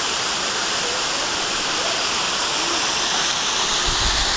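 Small waterfall pouring into a rock pool: a steady rush of falling water. A low rumble joins near the end.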